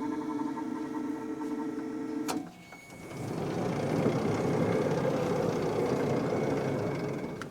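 Wood-Mizer LT35 portable sawmill running: a steady machine hum with several tones cuts off abruptly with a click about two seconds in. After a brief lull, a steady rushing mechanical noise builds from about three seconds in and eases off near the end.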